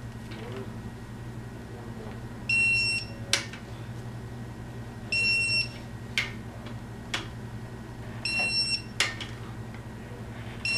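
Digital torque wrench beeping as it reaches its set torque on connecting rod cap bolts being tightened to 60 ft-lb. There are short high half-second beeps about every three seconds, a fourth starting at the very end, with sharp metal clicks from the wrench and socket in between, over a steady low hum.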